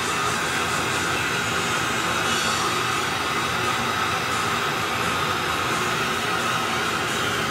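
Plumber's soldering torch burning with a steady, loud hiss close by as its flame heats a copper pipe fitting being sweated with solder.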